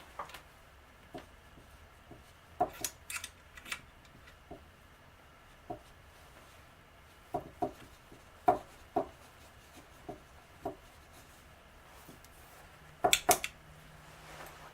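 Irregular clicks and knocks of rifle parts and small tools being handled during disassembly and scope-mount work, a few at a time, with a louder quick cluster of sharp clicks near the end.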